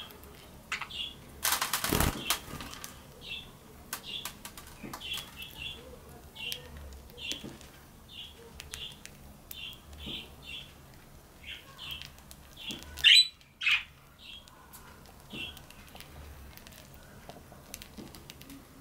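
Budgerigars feeding from a hand. Soft short chirps repeat about once a second over fine clicks of beaks husking seed. A brief burst of wing flapping comes about two seconds in, and two loud sharp calls come close together about two-thirds of the way through.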